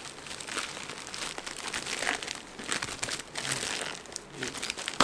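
Shipping packaging crinkling and rustling as a mailed package is unwrapped by hand.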